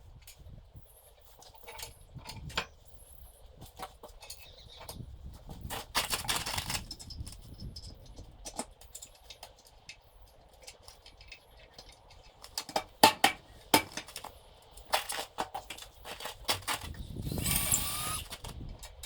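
Tools and metal bolt hardware being handled while bolting wooden feet onto a frame: irregular clicks, clinks and knocks, with a run of sharp ones past the middle, and two stretches of scraping or shuffling about six seconds in and near the end.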